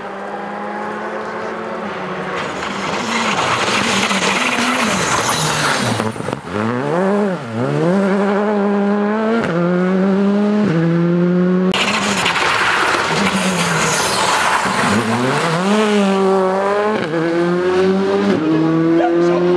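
Škoda Fabia R5 rally car's turbocharged four-cylinder engine at full throttle, its pitch climbing in steps through the gear changes. Twice it dives and climbs again as the car brakes and downshifts for a corner. The sound changes abruptly about twelve seconds in, where two passes are joined.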